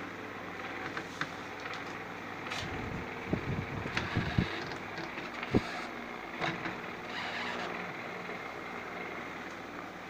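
Small electric desk fan running with a steady hum. A cluster of low thumps comes about three to four and a half seconds in, and one sharp knock comes just after five and a half seconds.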